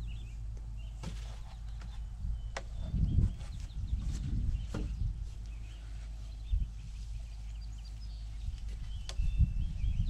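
A heavy cedar post being handled and stood upright in its hole: a few sharp wooden knocks and some dull thumps, over a steady low rumble.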